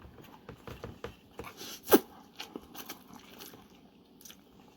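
Close-up eating sounds of a person starting on a bowl of spicy instant noodles: scattered small clicks and smacks of chewing and utensils, with one short, louder falling sound about two seconds in.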